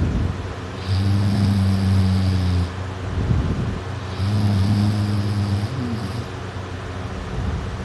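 A sleeping person snoring. There are two long snores, about a second in and about four seconds in, each lasting nearly two seconds, with quieter breathing between them.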